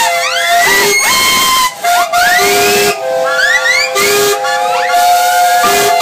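Many steam traction engine whistles blowing together over a hiss of escaping steam. Some hold steady notes while others slide up and down in pitch, and one lower whistle sounds in short blasts about every one and a half seconds.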